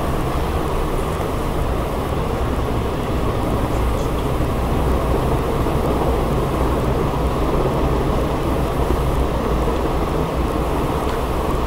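A steady, loud, low rumbling noise with no breaks or changes.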